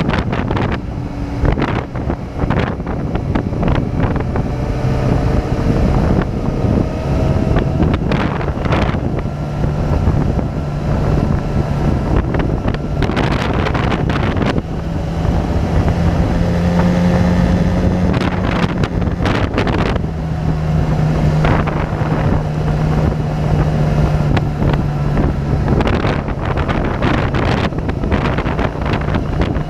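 Motorcycle engine running at road speed, its low hum shifting up and down in pitch as the speed changes, under heavy wind buffeting on the camera's microphone, with several stronger gusts.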